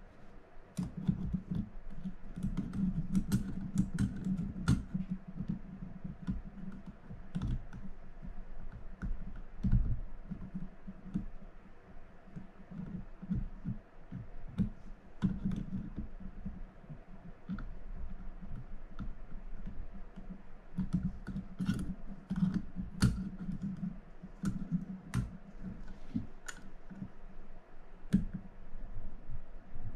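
Penn Senator 113H fishing reel parts and small tools being handled during servicing: irregular light clicks and taps of metal parts, with low rubbing and handling sounds in between.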